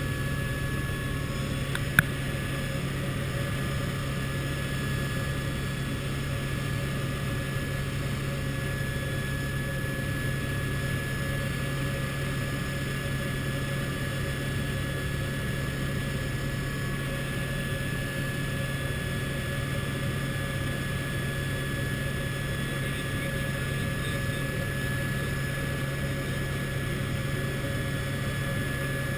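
Steady drone of a helicopter's engine and rotor inside the cabin, with a steady high whine over a heavy low hum. A single sharp click about two seconds in.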